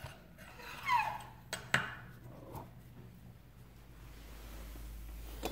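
Thin metal pop-up lift rod scraping and clicking against the chrome faucet body as it is dropped into the hole at the back of the faucet: a short falling squeak about a second in, then two sharp clicks close together.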